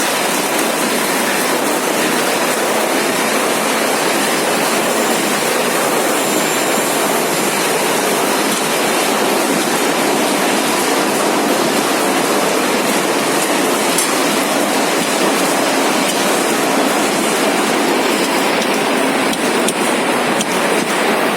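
Two-colour die-cutting machine for carton boxes running at a steady speed: an even, unbroken mechanical noise with little low rumble, and a few faint ticks near the end.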